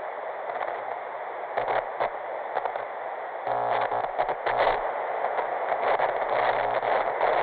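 Television static from a lost signal: a steady hiss broken every second or so by short buzzing, crackling glitches.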